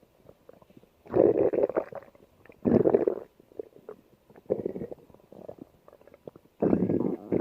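Stomach growling in several separate rumbles with quiet gaps between them: two loud ones about a second and about three seconds in, softer ones in the middle, and another loud one starting near the end.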